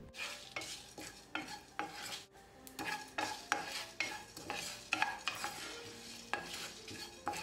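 Wooden spatula stirring whole spices (fennel, cumin, coriander seeds, black peppercorns and dried red chillies) as they dry-roast in a nonstick pan: short scraping strokes about two a second, with the seeds rattling across the pan.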